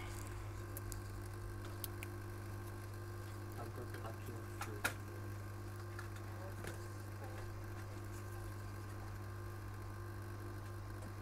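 Steady hum of a hot-air rework station blowing while the charging IC is lifted off an iPhone logic board, with a few light clicks, the sharpest about five seconds in.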